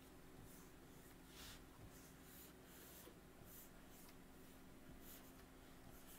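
Faint stylus strokes scratching on a tablet screen while inking lettering digitally: short soft scratches every half second or so, over a low steady hum.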